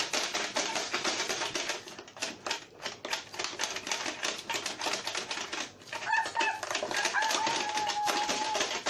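Toy pinball gumball machine clattering with a fast run of plastic clicks as it plays. A steady high tone sounds for a couple of seconds near the end.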